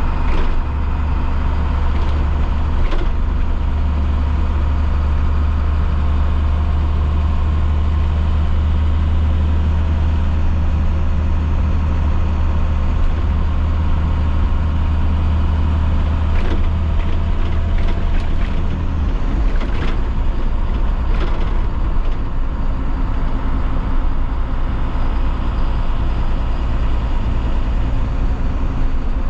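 A 2012 IC CE school bus's MaxxForce DT inline-six turbo diesel running steadily, with its low engine note dropping to a lower pitch about two-thirds of the way through. A few sharp clicks or rattles sound over it.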